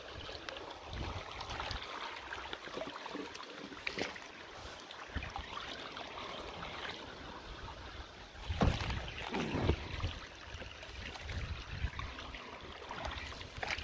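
Hands splashing and sloshing in shallow pond water while clearing mud and sticks from a beaver-clogged culvert grate, over a steady wash of water. A few louder splashes come about four seconds in and again around nine seconds in.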